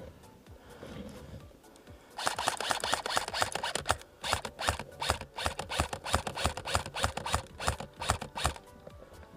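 A song playing over the footage; from about two seconds in until near the end it turns loud, with a dense run of sharp, rapid clicks.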